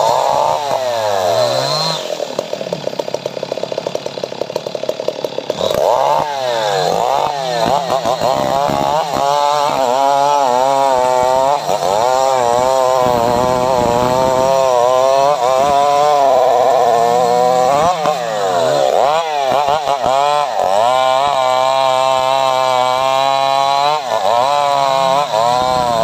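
Two-stroke chainsaw engine running hard through a large mahogany trunk, its pitch rising and falling over and over as the chain bogs in the cut and recovers. About two seconds in it drops lower and choppier for a few seconds, then revs back up.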